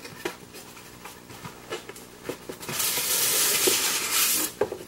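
Cardboard packaging handled with soft taps and clicks, then a styrofoam-packed insert sliding out of a cardboard box with a loud, even scraping hiss for about two seconds, followed by a few more clicks.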